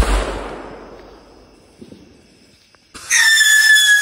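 A firework goes off with a single sharp bang whose report fades away over about two seconds. About three seconds in, a whistling firework starts up: a loud, steady, shrill whistle that drifts slightly lower in pitch.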